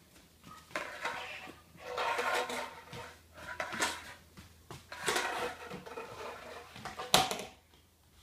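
Plastic vacuum cleaner wand and floor nozzle dragged and knocked along a tile floor, scraping and clattering irregularly, with one sharp clack near the end as the tube hits the floor.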